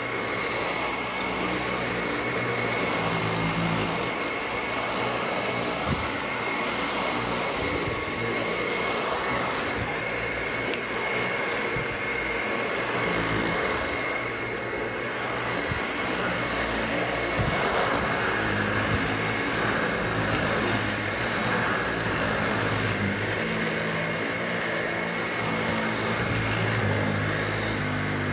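Dyson Ball Animal upright vacuum cleaner running steadily with a high whine over rushing air while it is pushed back and forth over carpet and a rug.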